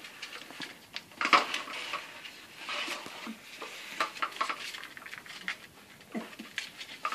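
Six-week-old German Shepherd puppies scrambling on a tile floor and tugging at a mop as it is pushed along: irregular clicking, scraping and knocks, with the loudest clatter about a second in.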